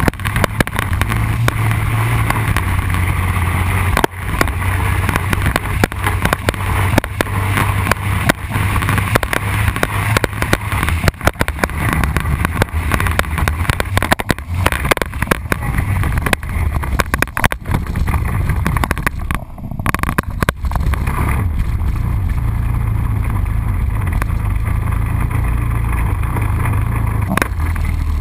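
Honda Rincon 680 ATV's single-cylinder engine running under way, mixed with wind on the microphone and frequent knocks and rattles from the rough gravel trail.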